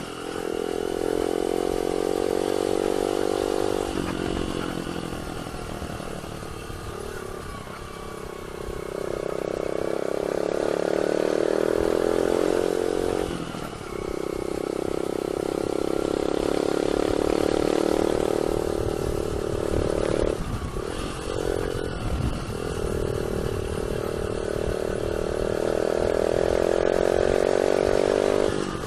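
Yamaha YBR 125's single-cylinder four-stroke engine running under way in second gear, held at a steady pitch with the throttle eased off and reopened a few times.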